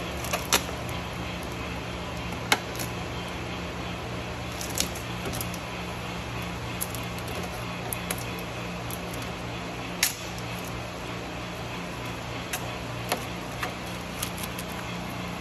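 Electric heat gun running with a steady blower hum and hiss while heat-softened vinyl wrap is peeled off a car bumper. A few sharp crackles of the film pulling away, the sharpest about two and a half seconds and ten seconds in.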